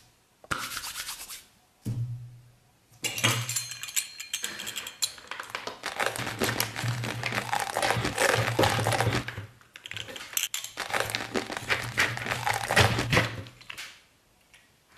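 Pizza-cutter wheel rolling through a crust of raw, dry instant noodles, crunching and crackling in about five passes with short pauses between, the longer passes lasting several seconds. A low hum runs under each pass.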